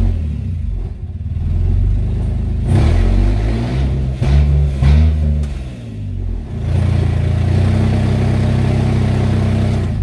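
2009 Toyota Camry's 3.5-litre V6 revved under throttle: engine speed climbs from about three seconds in, falls back about six and a half seconds in, then runs steadily. The car has a no-power complaint that the mechanic suspects is low fuel pressure.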